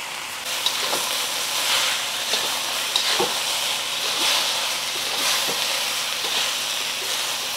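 Fried rice with chicken and pineapple chunks sizzling in a hot steel wok, stirred with a metal spatula that scrapes and knocks against the pan now and then.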